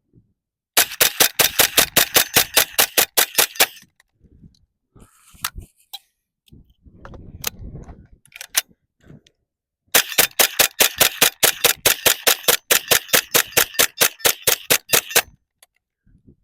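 HK MP5 .22LR rimfire carbine fired rapidly, semi-automatic, several shots a second: a run of about three seconds, a pause with rattling and clicking of a magazine change, then a longer run of about five seconds that empties the second magazine.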